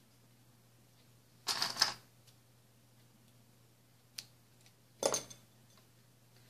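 Small scissors snipping through thin paper quilling strips: a few short, sharp snips and clicks, with quiet between them.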